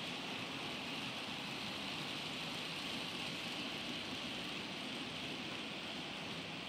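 OO gauge model freight train of short-wheelbase wagons rolling steadily over the track, a continuous hiss of small wheels on rails. It runs smoothly now that the superelevation has been taken out of the track.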